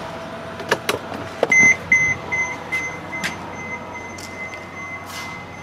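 A few sharp clicks, then a high electronic beep that repeats about twice a second, its pulses running together into a fainter steady tone.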